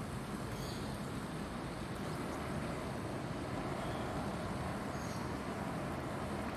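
Steady, even rush of background noise with no distinct events standing out.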